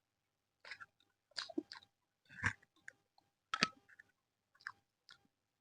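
Close-miked chewing and biting of aloo methi paratha with curd: a string of short wet mouth noises at an irregular pace, one or two a second.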